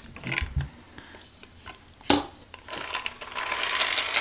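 Handling noise from a black plastic hand-crank generator being picked up and turned in the hands: a few light clicks, a sharper click about two seconds in, then a scratchy rubbing of hands over the case in the second half.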